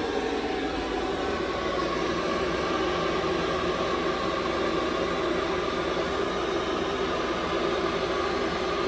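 A 2011 Ducane heat pump system running steadily in heat mode: an even whir of the fan and rushing air.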